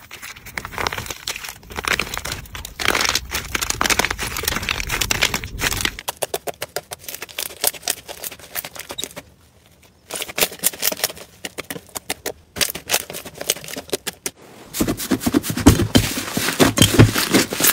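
Hands working slime: dense crackling and popping clicks as a crusted slime shell cracks apart, then sparser clicks as a soft slime is pressed, then louder, fuller popping as a puffy slime is squished, from about 15 seconds in.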